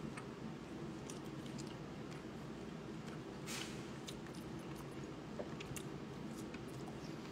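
Faint eating sounds as a man picks up a bite-sized piece of steak and bites into it: scattered small mouth clicks and smacks, with a short hiss about halfway through.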